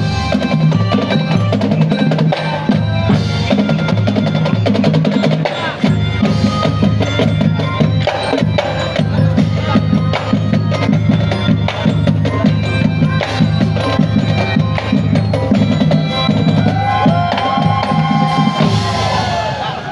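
Marching band playing a loud, drum-heavy piece: a dense beat of marching drums under pitched melody and bass notes.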